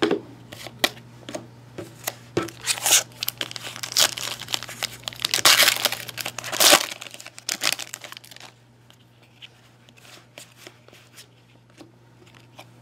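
A foil trading-card pack wrapper being torn open and crinkled, with the cards inside clicking and rustling as they are handled. The tearing and crinkling are loudest a little past the middle, then only sparse faint card clicks follow.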